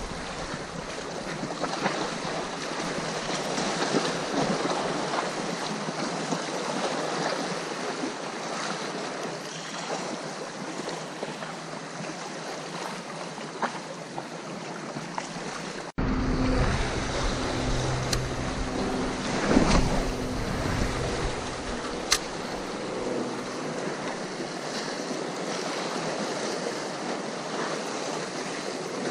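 Sea waves washing on the shore with wind on the microphone. About halfway in the sound cuts abruptly, and a low steady hum and a few sharp clicks then join the surf.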